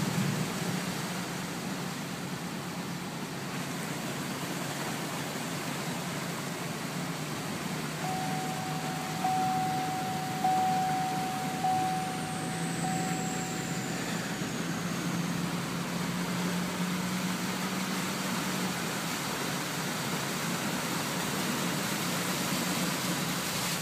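Vehicle interior engine hum and road noise while driving. Around the middle a steady high tone sounds for several seconds, getting louder in steps.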